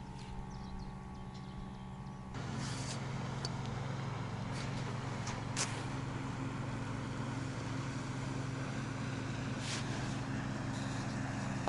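Small outboard motors of about five horsepower on inflatable PVC boats, running quietly as a steady low drone that sets in about two seconds in, with a few light clicks.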